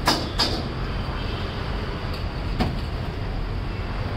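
Steady low rumble of the stall's background, with sharp metal clinks of a steel cup and spoon as butter goes onto the pav bhaji tawa: two at the start and one about two and a half seconds in.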